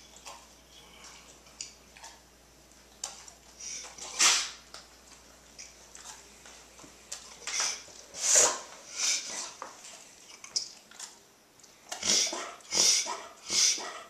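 Chocolate Labrador retriever reverse sneezing: short, sharp noisy pulls of air through the nose in scattered bouts, with three quick ones in a row near the end. A mild reverse sneeze, the spasm of the soft palate that is usually harmless in dogs.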